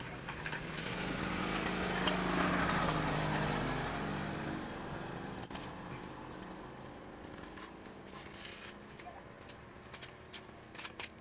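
A small vehicle engine passing by, swelling to its loudest about two to three seconds in and fading away by about five seconds. Near the end come a few light clicks of metal parts being handled as the cylinder head is fitted onto the engine block.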